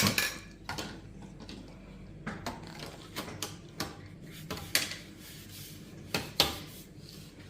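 Vacuum cleaner parts clicking and knocking as they are handled, about a dozen irregular clicks spread over several seconds. The vacuum's motor is not running.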